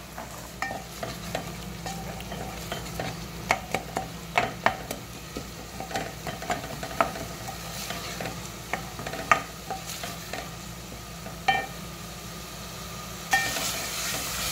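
Wooden spatula stirring and scraping a tomato-and-spice masala frying in an aluminium pot, with irregular knocks against the pot over a steady sizzle. The sizzling gets louder near the end.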